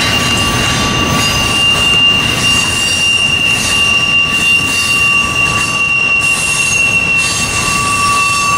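Freight train wheels squealing steadily as their flanges grind around the sharp curve, a high ringing held on two pitches over the rumble of passing double-stack container cars and locomotives.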